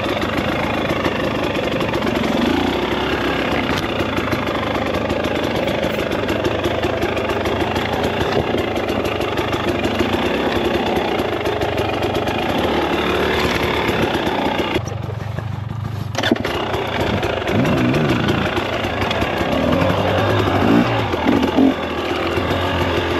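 KTM 300XC single-cylinder two-stroke dirt bike engine running as the bike is ridden, its revs rising and falling with the throttle. About fifteen seconds in, the engine note falls away for about a second as the throttle is closed, then picks up again in short revs.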